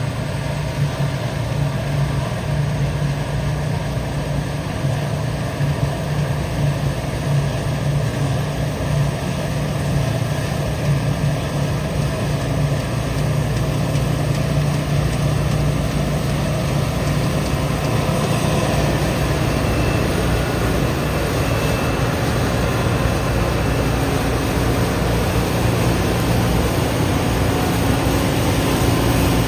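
John Deere 9560 WTS combine harvester running while it cuts wheat: a steady heavy engine drone with machinery noise, getting a little louder past the middle as the machine comes close and goes by.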